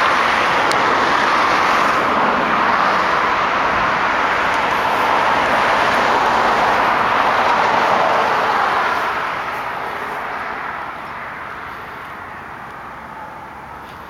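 Road traffic noise from passing vehicles, a steady rushing sound that fades away over the last few seconds.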